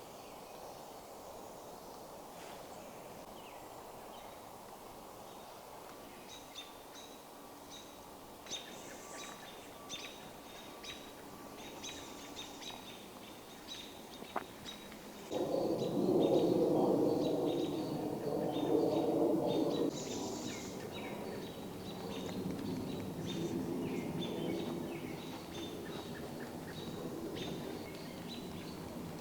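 Songbirds chirping and calling in short bursts over a faint steady background. About halfway through, a louder low drone with several steady tones comes in suddenly; it is loudest for a few seconds, then eases but carries on under the bird calls.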